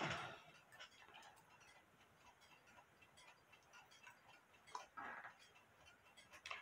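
Near silence with a clock ticking faintly and evenly in the background, and a brief soft handling sound of small clock parts about five seconds in.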